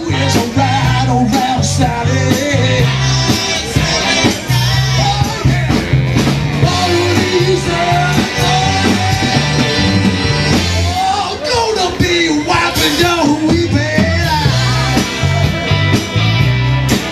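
A rock-and-roll band playing with a singer: a repeating bass line, drum hits and a sung melody.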